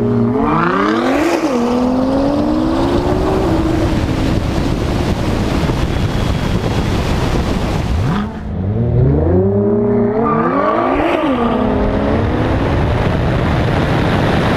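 Nissan GT-R R35's twin-turbo V6 accelerating hard from a launch, climbing through the gears with quick drops in pitch at each upshift, over heavy wind and road noise. A second hard run starts about eight seconds in.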